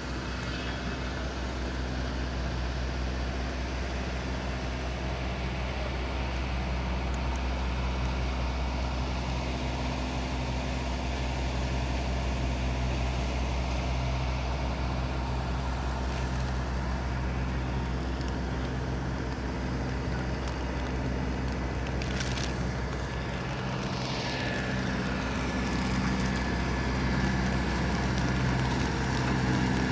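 Heavy engine running steadily, a low hum with a brief falling whine about two-thirds of the way through.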